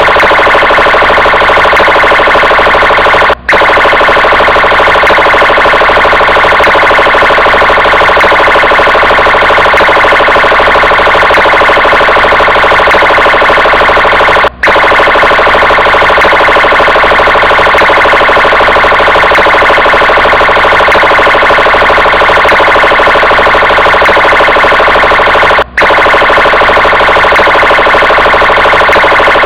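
Police vehicle siren sounding loud and without a break, except for three very short dropouts about eleven seconds apart.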